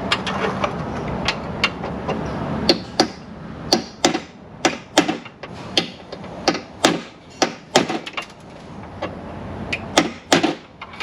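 A red hammer striking metal inside a Mercury Grand Marquis front door, a long run of sharp, irregular blows, knocking the window regulator loose.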